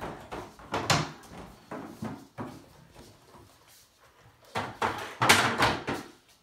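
Rummaging: irregular knocks, clatters and rustles of toys and objects being handled. They are loudest about a second in and again in a longer run from about four and a half to six seconds.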